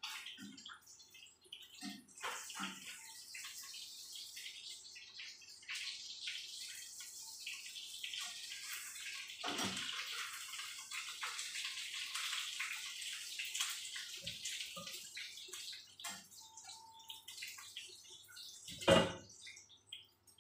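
Kitchen tap running steadily for about fifteen seconds, with a few light clinks, then fading out. A single loud knock comes near the end.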